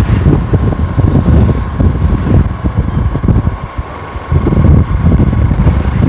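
Wind rushing and buffeting over the microphone of a moving motorcycle, with the bike's running engine mixed in underneath. The rush eases briefly a little before four seconds in, then returns.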